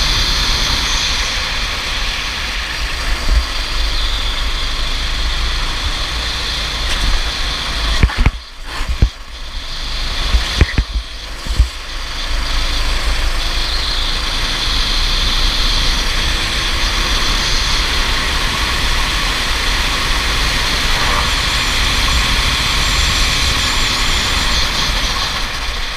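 Go-kart running at speed on track, heard onboard as steady engine and wind noise on the microphone. A few sharp knocks come with brief dips in the noise between about eight and twelve seconds in.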